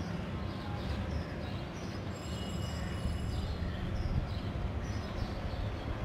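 Steady low outdoor rumble on the microphone, with faint short high chirps scattered through it.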